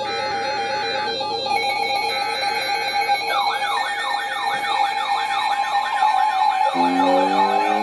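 Electronic emergency alert tones from weather alert receivers, several layered at once. A steady alert tone is joined about three seconds in by a repeating siren wail at about two sweeps a second, and near the end by a lower, rising siren sweep.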